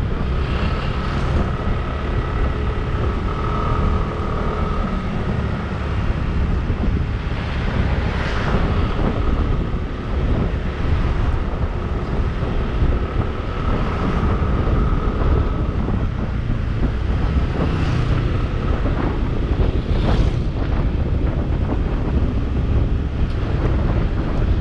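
Wind buffeting the microphone of a moving bike, a dense steady rumble, with the noise of the ride and the road underneath.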